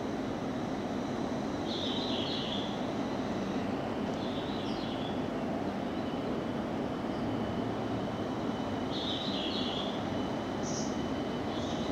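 JR East 701-series electric trains at a platform, one pulling slowly away: a steady low running hum with a faint thin whine above it. A few short high chirps come over it.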